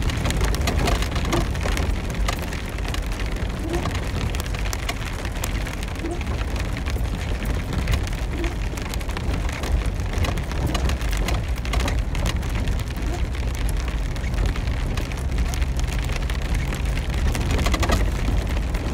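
Rain hitting a Jeep's roof and windshield as a dense stream of irregular sharp ticks, heard from inside the cabin, over the steady low rumble of the engine and tyres on a rough, wet dirt track.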